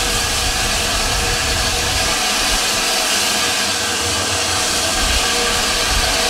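Steam locomotive standing with steam venting: a loud, steady hiss with a few faint held tones in it and a low rumble underneath.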